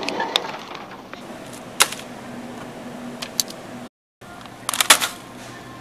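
Handling noise: scattered sharp clicks and knocks from a plastic shopping basket and the camera being jostled while walking, over a steady faint hum. The sound drops out briefly about four seconds in, and a quick run of clicks follows near the end.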